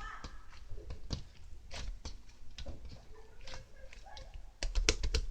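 Scattered light taps and clicks of hands handling small objects on a hard surface, with a quick run of louder knocks near the end.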